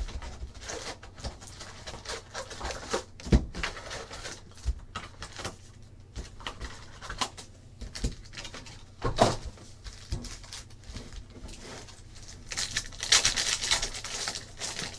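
Handling of a trading-card box and foil packs: scattered clicks and knocks of cardboard and packs being set down, with a couple of louder knocks. Near the end, a Panini Optic foil pack's wrapper crinkles as it is torn open.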